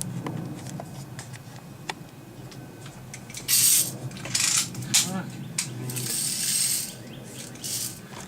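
Daisy Red Ryder lever-action BB rifle being worked and readied: a series of short metallic rasping and clicking strokes, several of them between about three and a half and eight seconds in.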